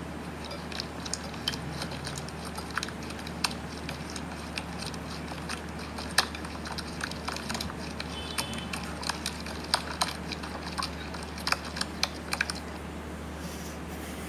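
Slime being squeezed and stretched by hand, giving off irregular sharp clicks and pops, several a second.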